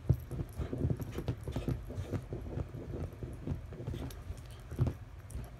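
Pembroke corgi puppy digging and pawing at blankets on a bed: a quick, irregular run of scratches, rustles and soft thumps of paws on fabric, with a couple of louder bumps near the start and about five seconds in.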